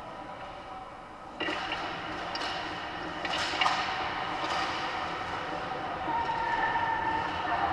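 Ice hockey play on an indoor rink: skates scraping and carving on the ice, with a few sharp clacks of sticks and puck, the loudest about three and a half seconds in.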